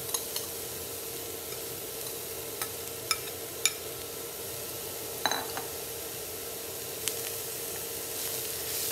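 Riced cauliflower being added to a hot oiled frying pan of browned onion and garlic, sizzling steadily, with several sharp clicks of a spoon and wooden spatula against the bowl and pan.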